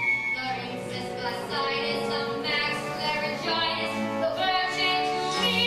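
Stage musical number: a female voice singing over instrumental accompaniment.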